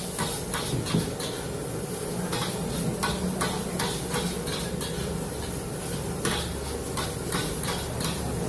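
Metal spatula repeatedly striking and scraping a wok while fried rice is stir-fried, with irregular clanks over a steady sizzle.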